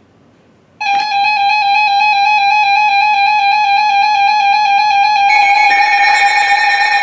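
Emergency Alert System attention signal: a loud, steady electronic alert tone that starts suddenly about a second in, with a slight waver, and grows fuller and slightly louder about five seconds in, announcing an emergency alert (here a severe thunderstorm warning).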